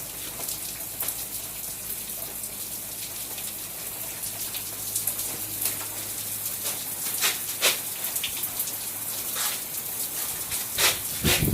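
Rain falling: a steady hiss with individual drops striking a surface every second or so.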